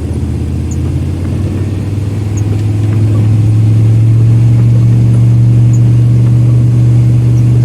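Car engine and road noise heard from inside a moving car: a steady low hum that grows louder about three seconds in.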